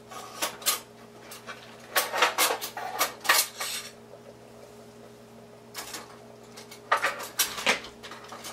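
Metal utensils clinking and clattering against pots and dishes in several short bursts: about half a second in, from two to three and a half seconds, near six seconds and around seven seconds. A steady low hum lies underneath.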